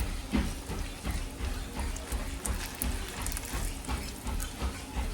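Chicken breasts sizzling in hot oil in a frying pan, with scattered pops and crackles, under background music.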